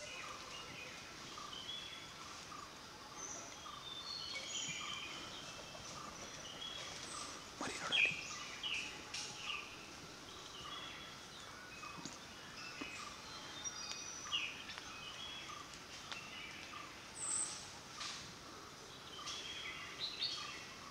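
Forest birds calling and chirping, many short whistled notes overlapping, with one short note repeating about twice a second. A single louder rising call stands out about eight seconds in.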